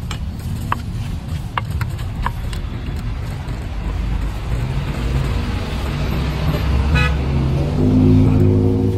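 Street traffic: a motor vehicle's engine comes close and gets louder toward the end, with a brief toot about seven seconds in. A few light clicks sound in the first couple of seconds.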